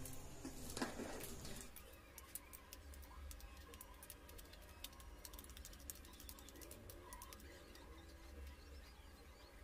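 Faint clinks and light taps of a steel spoon against a steel bowl as a soft, curd-like food is stirred, with a fuller scrape about a second in.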